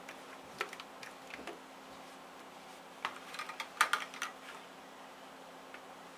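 A spatula knocking and scraping against the side of a plastic bucket of soap batter: a few light clicks about half a second to a second and a half in, then a quick cluster of knocks around three to four seconds in.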